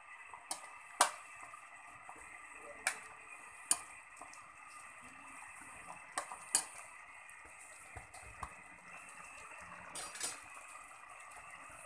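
Metal ladle stirring a simmering coconut-milk stew in a metal pan, with several sharp clinks of the ladle against the pan spaced a second or more apart, over a steady faint hiss.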